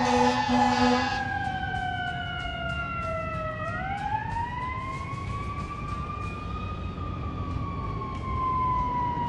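Fire engine's air horn sounding for about the first second, while its siren glides slowly down in pitch. The siren then rises again over about three seconds and slowly falls away, over a steady traffic rumble.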